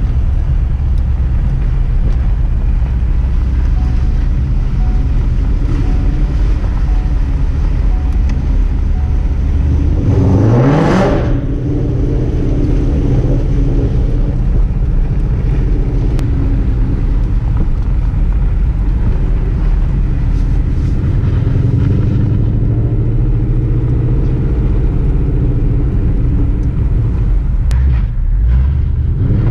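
Ford Mustang GT's V8 engine running steadily with a low rumble as the car is driven, the engine note rising once as it accelerates about ten seconds in.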